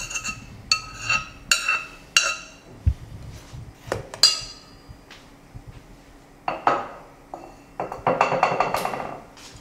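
A metal spoon and pot clinking against a stainless steel mixing bowl: several sharp ringing taps in the first couple of seconds and another about four seconds in, as the melted butter is scraped out. Near the end, a second or so of spoon scraping and stirring in the bowl.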